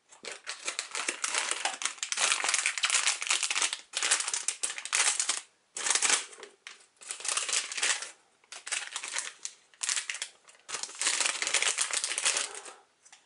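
Foil blind bag crinkling as it is handled and torn open, in several spells of a second or two with short gaps.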